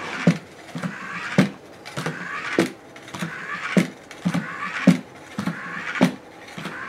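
Small DC motor whirring on a homemade bottle-and-popsicle-stick walking toy, with a sharp knock on the wooden floor a little under twice a second as its motor-driven arm turns and the toy steps along.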